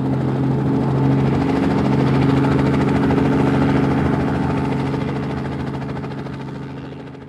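Cartoon vehicle engine sound effect: a steady, loud mechanical hum that fades out over the last two seconds.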